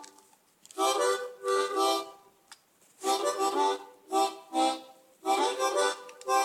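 Harmonica played in short chordal phrases, several notes sounding at once, with brief gaps between phrases.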